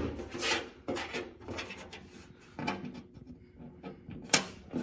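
Hand tools, most likely the pliers, handled against a car's sheet-metal body panel: scattered scrapes and light clicks, with one sharp click near the end.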